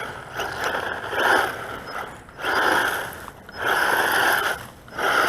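Brushless motor of a 1:12 scale 4WD RC truck whining in about four bursts of throttle, each about a second long, with the drivetrain and tyres rattling and scraping over dirt.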